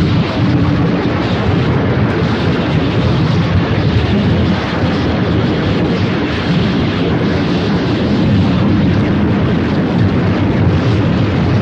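Dense, steady wall of rumbling noise, heaviest in the bass, from an experimental tape piece built from radio and field recordings processed in real time.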